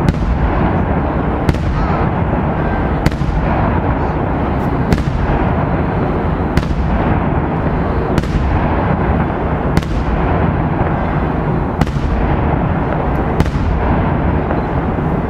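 Daytime fireworks display: loud, sharp bangs of shells bursting in the air, one every one and a half to two seconds, each trailed by an echo, over a steady dense rumble of continuous firing.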